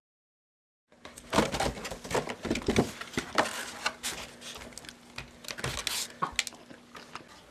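Hands handling an open cardboard donut box and picking through the donuts: irregular rustles, taps and clicks, starting about a second in. A faint steady hum runs beneath and stops near the end.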